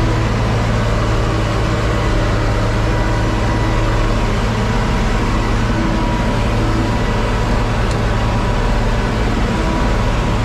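John Deere 4250 tractor's six-cylinder diesel engine running steadily under load, towing and driving a Kuhn VB 3155 round baler while baling hay. It is a constant, even drone with a strong low hum and a few steady higher tones, and there is no change in engine speed.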